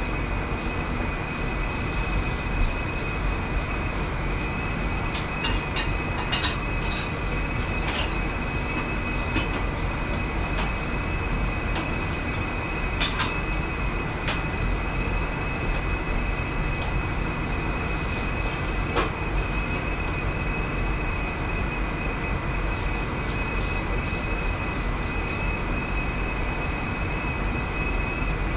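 Steady roar of a restaurant kitchen's exhaust hood and gas range, with a steady high whine over it and a few light clinks of utensils.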